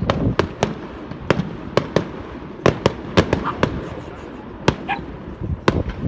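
Fireworks display going off: a dozen or so sharp bangs and cracks at irregular intervals, over a steady low rumble.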